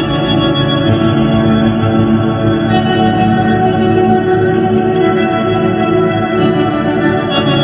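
Ambient improvised music from a Line 6 amplifier: sustained, overlapping organ-like chords held steadily, with the chord changing about three seconds in.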